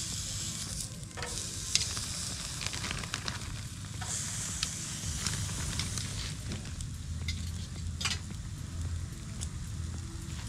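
Raw pork chops sizzling on a hot wire grill over charcoal as they are laid on, the hiss swelling at the start and again about four seconds in when the second chop goes down, with a few sharp clicks.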